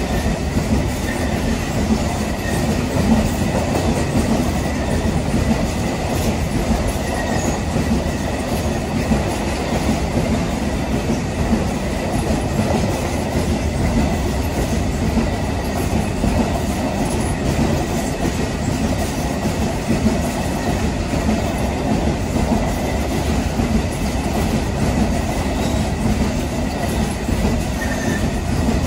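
Long freight train of container flat wagons passing close by at speed: the steady rolling rumble of wheels on rails, with a faint, steady high-pitched whine underneath.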